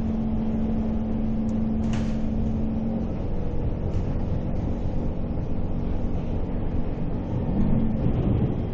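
Interior noise of a Kawasaki C151 metro car: a steady hum over a low rumble, with a sharp click about two seconds in. About three seconds in the hum stops and the rumble grows louder and more uneven as the train gets under way.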